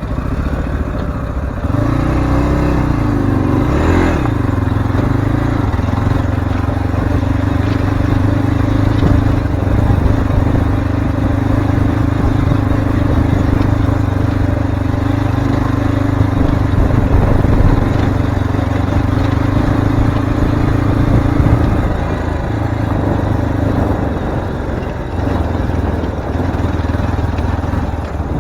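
Zongshen RX3 Cyclone's single-cylinder engine running steadily while the motorcycle is ridden over an off-road track. The engine pitch wavers up and down a couple of seconds in, and the engine note fades somewhat near the end.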